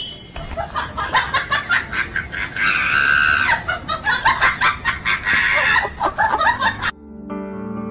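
A rapid, high cackling, several quick clucks a second, with one longer drawn-out squawk about three seconds in. It cuts off near the end and music begins.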